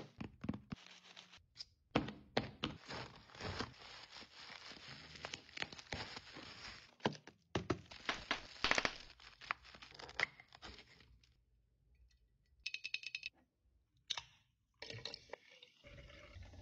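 Close-up unboxing handling: packaging being torn, crinkled and knocked about in a dense run of clicks and rustles. After a short lull comes a quick run of clicks, then near the end a canned drink pouring into a glass.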